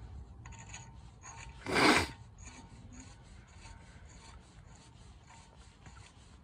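Steel wheel stud being screwed by hand into the threaded hole of a wheel hub, its thread-locker-coated threads rasping against the hub's threads in a fast run of short strokes. There is one louder scrape about two seconds in.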